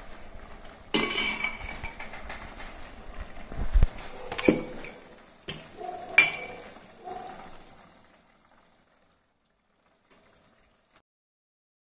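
A steel perforated ladle knocking and scraping against aluminium cooking pots while scooping cooked rice: several sharp clinks with a brief metallic ring, and the clatter dies away about eight seconds in.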